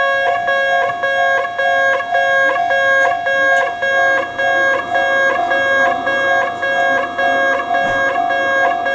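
Japanese railway level-crossing warning bell ringing, its chime struck in a steady rhythm of about two strikes a second.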